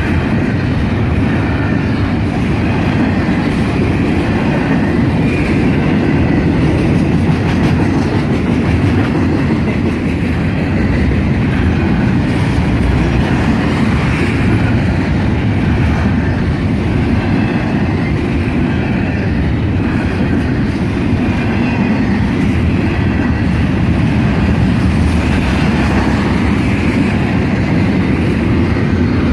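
Norfolk Southern freight train rolling past at close range: a steady, loud rumble of the cars running over the rails.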